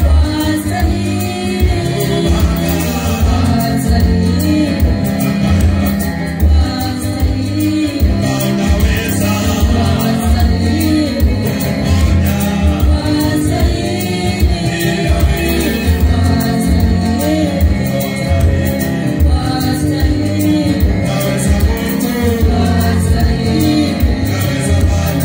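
Gospel praise music: singing on a microphone over a loud, bass-heavy backing.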